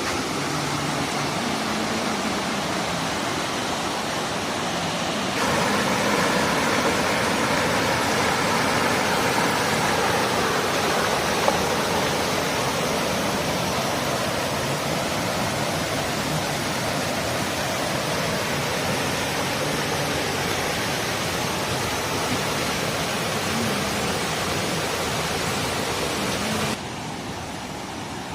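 Waterfall: a steady rush of falling water. The sound jumps louder and brighter about five seconds in and drops back abruptly near the end.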